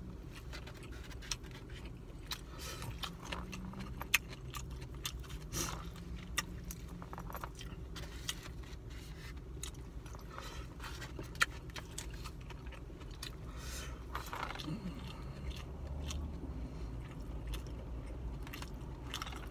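Plastic fork clicking and scraping in a foam takeout container, with mouth-noise chewing, many small irregular clicks over a low steady hum.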